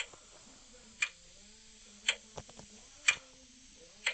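Clock ticking about once a second, each tick a sharp click, with fainter clicks in between.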